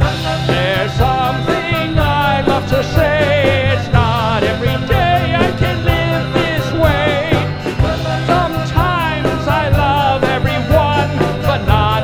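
Rock band playing live: a drum kit keeps a steady cymbal beat under bass and keyboards, with a wavering lead melody on top.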